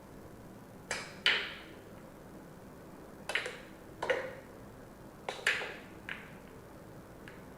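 Billiard balls clacking against one another in a pool sound effect being played back: a string of sharp clacks, often in pairs, about every second or two.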